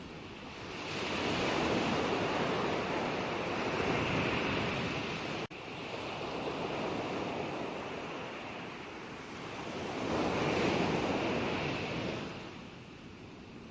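Gentle ocean waves washing onto a shore: a steady surf that swells as a wave breaks about a second in and again around ten seconds in, then eases. A split-second gap in the sound comes about five and a half seconds in.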